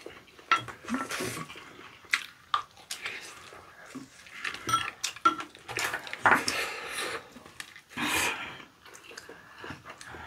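Eating sounds at a table: chopsticks and spoons clicking against bowls and plates in quick, irregular taps, with a few longer slurps and chewing from eating noodles and squid sashimi wraps.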